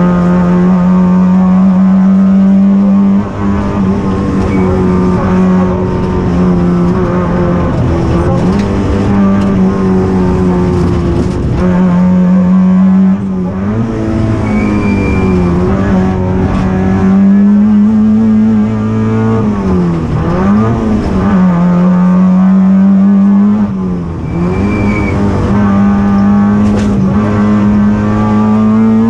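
Citroën ZX rally car's four-cylinder engine heard from inside the cockpit, run hard at high revs on a stage, with its pitch dropping and rising again a few times at gear changes and lifts.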